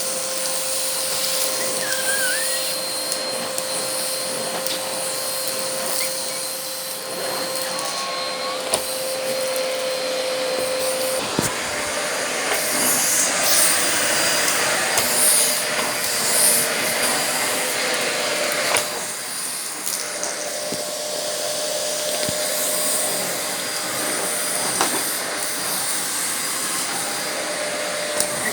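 Argos Simple Value vacuum cleaner running steadily with a hum in its motor note. Midway there is a spell of crackles and rattles as dirt is drawn in, and afterwards the motor's note sits slightly higher.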